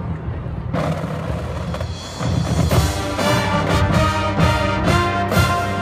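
College marching band playing: low drums rumbling for the first couple of seconds, then the brass comes in with loud sustained chords.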